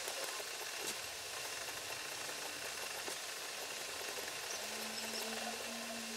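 Hot wire tip of a pyrography pen sizzling and scratching on pine wood in quick, short shading strokes.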